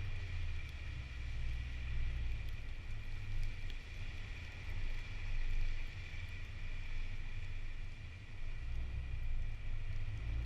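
Steady low rumble of a car driving: engine and road noise heard from inside the vehicle, swelling and easing a little, with a faint steady high-pitched tone over it.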